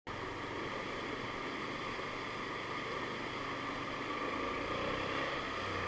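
Motorcycle engine running steadily with a constant hiss, as the bike rides through shallow floodwater.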